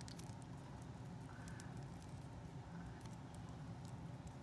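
Faint clicks and light rustling from a small plastic mini doll and its outfit being handled and squeezed on, over a steady low hum.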